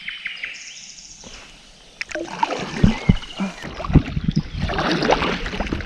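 Paddle strokes splashing and dripping in the water beside an inflatable packraft, starting about two seconds in, with a few dull knocks.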